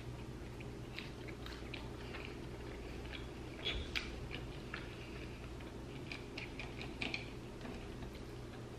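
A person chewing spicy chicken nuggets, with scattered small mouth clicks over a faint steady hum.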